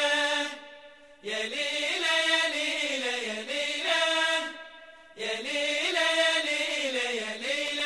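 A single voice chanting long held notes that bend slowly up and down in pitch. The chant comes in phrases, with short breaks about a second in and about five seconds in.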